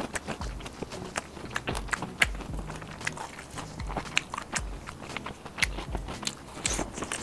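Close-miked chewing of fried skewer food: wet mouth clicks and smacks over a steady chewing rhythm, with a bite into a piece of fried meat near the end.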